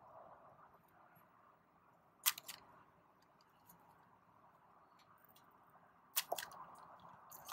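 Hand pruners snipping through fleshy malabar spinach stems: three short sharp snips, about two seconds in, about six seconds in and near the end.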